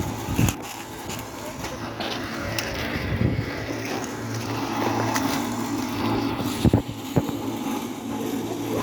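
Steady low motor hum with a few knocks and clicks, the loudest a pair of knocks about two-thirds of the way through.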